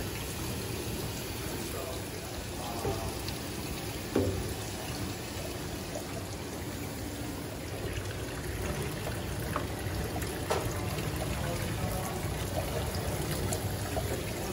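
Water running steadily from a hose into a vertical print washer and spilling out of its overflow outlets, with a short knock about four seconds in and another near ten and a half seconds.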